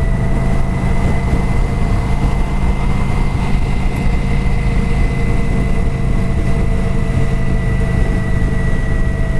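Kawasaki Vulcan 900 Classic's V-twin engine running steadily through its stock exhaust, heard from a microphone inside the rider's helmet. The engine note holds at one speed, with no revving.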